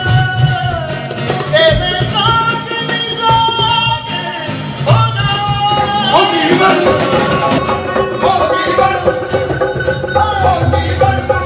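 Live unplugged band: a male lead singer singing long held, gliding notes into a microphone over acoustic accompaniment with a steady beat.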